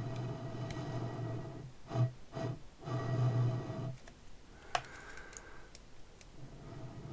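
Empty plastic kvass bottle being handled: stretches of rubbing and crinkling with short breaks, then a single sharp click nearly five seconds in, followed by quieter handling.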